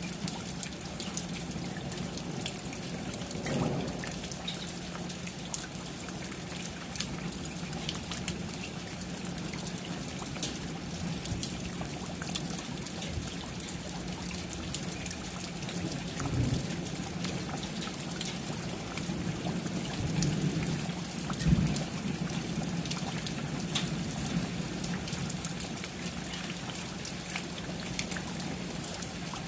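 Steady rain falling, with many individual drops ticking and dripping over an even hiss and a steady low hum underneath. A few short low thumps come about three and a half, sixteen and twenty-one seconds in.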